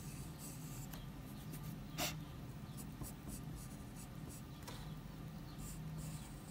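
Pencil sketching on paper: a run of short, scratchy strokes, faint throughout. A single sharp click about two seconds in is the loudest moment.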